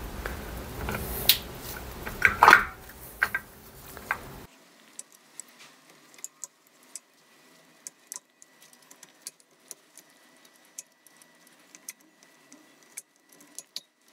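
Metallic clicks and clinks of a Kawasaki ZX130's clutch basket and centrifugal clutch drum being worked onto their shafts by hand. The loudest clatter comes about two and a half seconds in, and after that only sparse light clicks.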